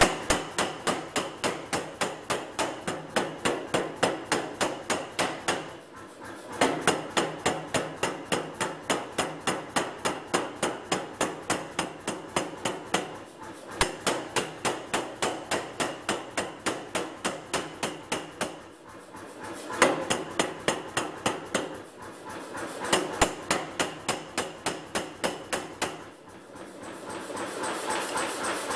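Power hammer striking a red-hot steel bar in a tong-forging jig to form a tong blank, about four blows a second, in runs with short pauses between them. Near the end the blows stop and the hammer keeps running with a steady sound.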